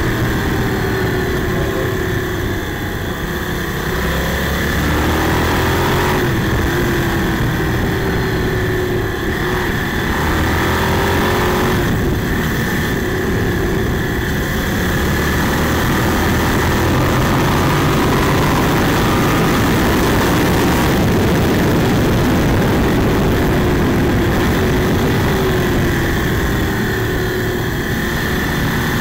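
Motorcycle engine heard from an onboard camera, its pitch rising and falling as the rider accelerates and eases off through the bends, with wind rushing over the microphone.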